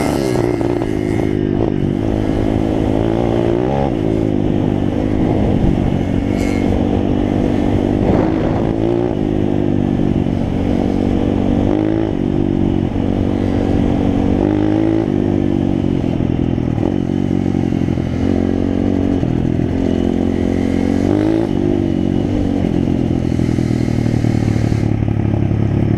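Small dirt bike engine running under the rider, revving up and easing off again and again as it is ridden along a gravel track.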